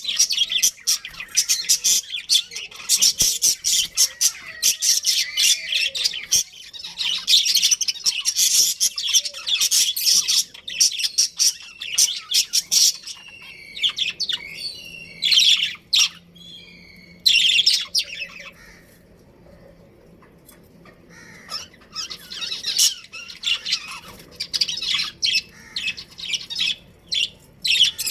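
Budgerigars chirping and chattering in a rapid, dense stream of high chirps, with a lull of a few seconds about two-thirds of the way through before the chirping picks up again.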